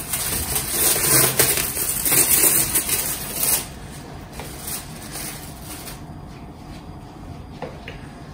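Plastic cling film crinkling loudly as it is peeled off a glass bowl and crumpled, for about the first three and a half seconds. After that come fainter, softer sounds of handling.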